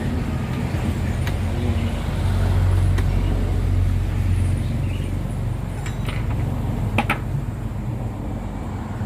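A steady low engine-like hum, a little louder for a couple of seconds near the start, with a few sharp metallic clinks, the loudest about seven seconds in.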